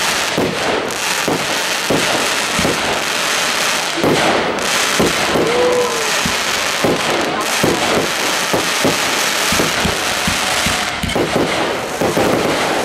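Fireworks display: aerial shells bursting in a rapid, continuous run of bangs, several a second, over a steady crackle.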